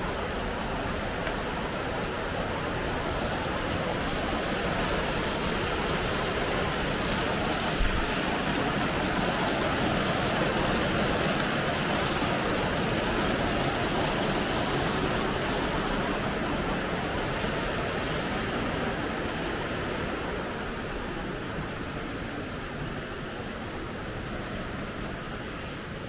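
Creek water rushing over rocks and a low concrete ledge in a steady, even rush. It swells in the middle and fades toward the end.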